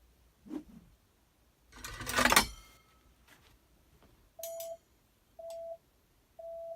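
A sharp, metallic swish with a ringing clink about two seconds in, made with a foley prop for a hatchet swing's 'shing'. Three short beeps follow, about a second apart.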